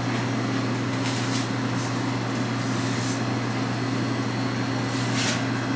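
Steady low hum of a newly installed drink vending machine's refrigeration unit running as it cools down, with a few brief soft hisses, the clearest near the end.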